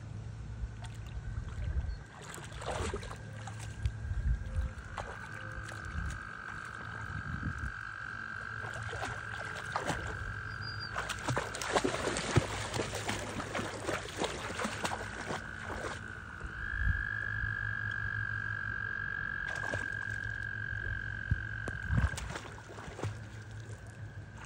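Dog wading and splashing through shallow pond water, loudest about halfway through. Behind it, a steady high-pitched trill holds for several seconds at a time, twice.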